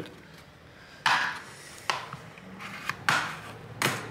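Sharp plastic clicks and knocks from a Hema HX-1 GPS navigator's housing as its pieces are pulled apart and handled: about four, the ones near one second and three seconds in the loudest.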